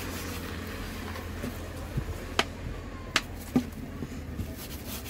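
A few short, sharp clicks, four of them between about two and three and a half seconds in, over a steady low hum.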